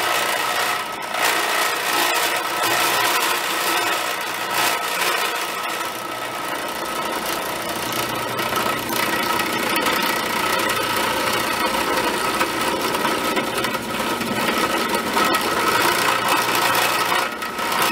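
Converted benchtop drill press milling an aluminium block with an end mill at about 1700 RPM: the steady hum of the spindle motor under the continuous grinding noise of the cutter in the metal, easing briefly about a second in and again near the end.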